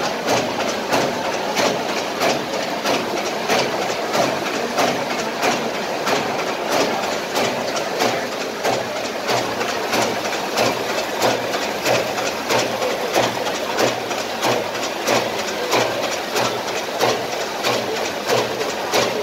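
Steelfast PBM 400 paper bag making machine running, a steady mechanical clatter with regular clacks about two a second over a continuous running hum.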